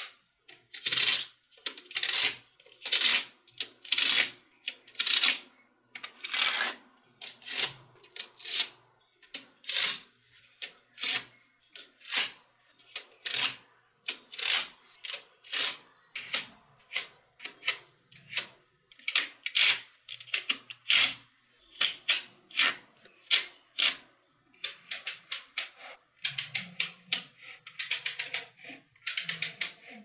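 Small neodymium magnet balls clicking and clattering as rows and sheets of them snap together under the fingers. The clicks come in irregular bursts, with a fast, dense run near the end.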